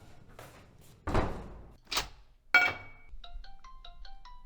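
Three separate knocks: a heavy thud about a second in, a sharp click, then a ringing knock. Then a light melody of short plucked or mallet-struck notes, several a second, begins about three seconds in.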